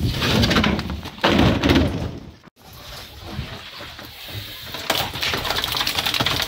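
Live carp tipped from a landing net into a plastic crate, flapping and slapping against the plastic while water splashes. The sound breaks off abruptly about two and a half seconds in, then comes back quieter and builds again near the end.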